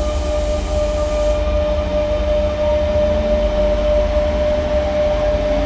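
Tram standing at a station platform: a steady electric hum holding one constant high tone over a heavy low rumble. A high hiss drops out about a second and a half in.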